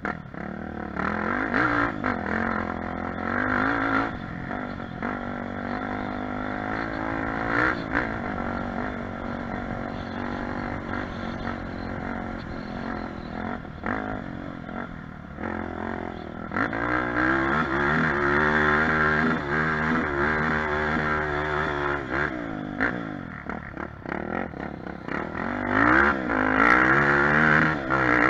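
Honda Tornado 350cc single-cylinder four-stroke trail bike engine running under way on rough dirt track, revs rising and falling with throttle and gear changes. It runs louder and harder in the last third, with knocks and rattles from the bumpy ground.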